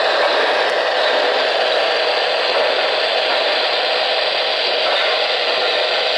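O-gauge model trains running on three-rail track: a steady whirring rattle of metal wheels and motors with no beat to it.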